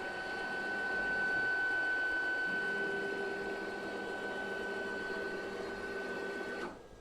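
3 Nm stepper motors of a DIY rack-and-pinion CNC router whining at a steady pitch as an axis travels at constant speed. A second, lower steady tone joins about two and a half seconds in as another axis moves, and both cut off together shortly before the end as the motion stops.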